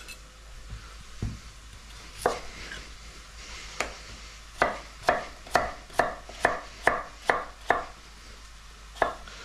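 Chef's knife chopping raw potatoes into rough chunks on a wooden cutting board: a few scattered knocks, then a steady run of about eight chops, roughly two a second, and one last chop near the end.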